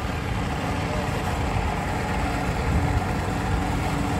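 Steady low engine rumble with a constant hum, such as a vehicle idling close by, mixed with wind buffeting the microphone.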